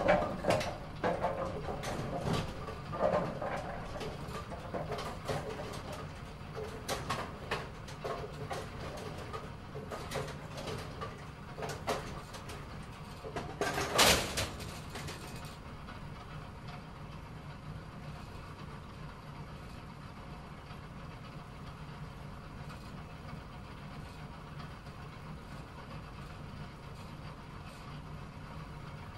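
Bowling pins clattering as they are knocked down: a string of knocks and rattles, with the loudest crash about fourteen seconds in. After that the clatter stops, leaving a steady low machine hum.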